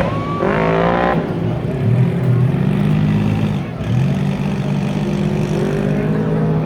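Off-road vehicle engine revving hard in the first second, its pitch climbing, then running on at a lower, uneven pitch as the throttle comes and goes.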